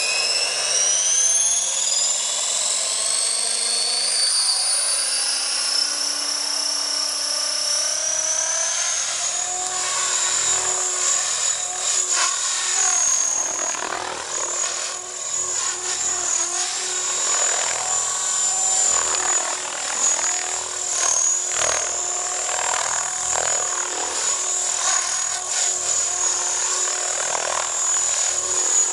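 Electric Align T-Rex RC helicopter fitted with a single rotor blade. The motor and rotor spool up with a steadily rising whine over the first several seconds. It then settles into a steady high whine that wavers as the helicopter lifts off and flies.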